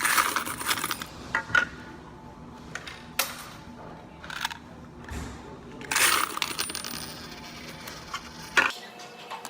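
Quarters clattering and jingling in several bursts as they are handled in bulk, the loudest at the start and about six seconds in, with a sharp knock near the end.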